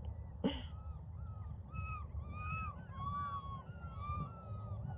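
Four-week-old Labrador puppies whining and squeaking, a string of short high whines that rise and fall, several a second.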